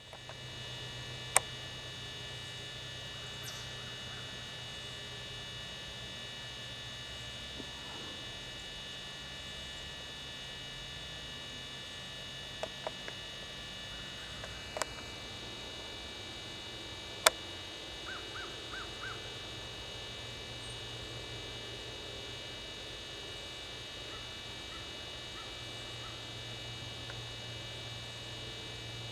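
A steady hum runs throughout, broken by a few sharp clicks. About 18 seconds in there is a quick run of faint bird chirps.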